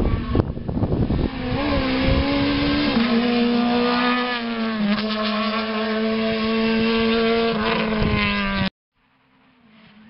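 Rally car engine at high revs, crackling roughly for the first second, then held hard as the car pulls away, its note stepping down at gear changes. The sound cuts off suddenly near the end.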